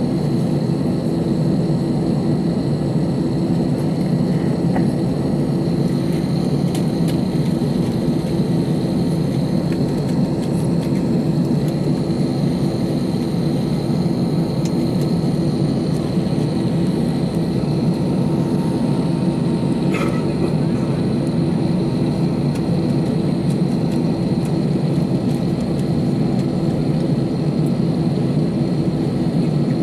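Steady cabin drone of an Airbus A319's jet engines running at low power while taxiing, heard inside the cabin near the wing, with a thin high whine over it.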